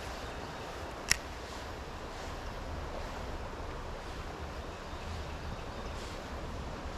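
Steady rush of flowing river water with low wind rumble on the microphone, and one sharp click about a second in.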